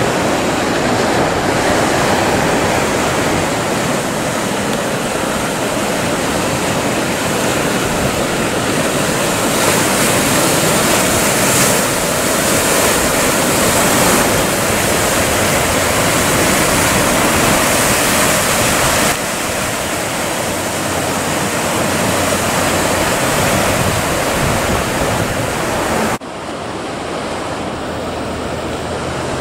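Sea swell and breaking surf: a steady, loud rush of washing water. It drops abruptly in level twice, about two-thirds of the way through and again near the end.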